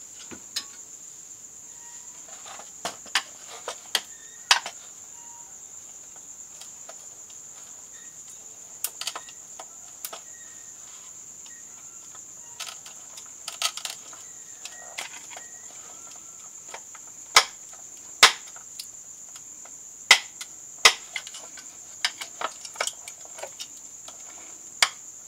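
Flat-blade screwdriver prying at the joint between a Philips SL Prismatic lamp's glass envelope and its plastic base: scattered sharp clicks and scrapes of steel on glass and plastic, the loudest a cluster about two-thirds through. A steady high-pitched hiss runs underneath.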